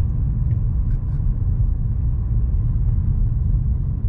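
Car driving slowly on a paved road, heard from inside the cabin: a steady low rumble of engine and tyres, with a few faint ticks in the first second or so.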